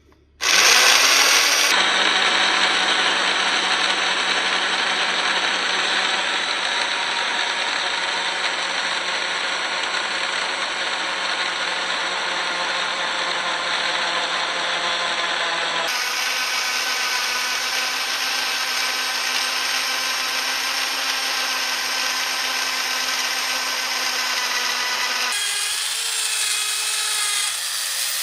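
Power drill running steadily under load, boring holes into a tree stump. The motor's pitch and tone shift abruptly a few times, about 2, 16 and 25 seconds in.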